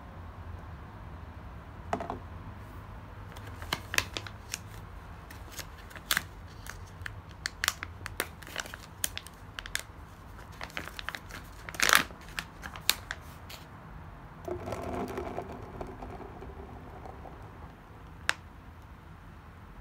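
Irregular small clicks and crinkling, as of packaging or objects being handled, in a small room.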